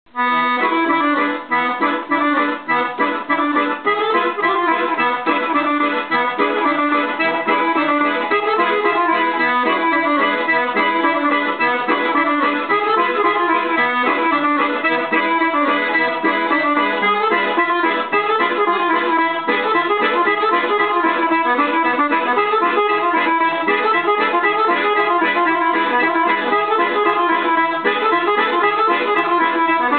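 Chromatic button accordion, a Dallapè, playing a fast kolo dance tune solo: a quick, busy melody over a steady pulsing rhythm.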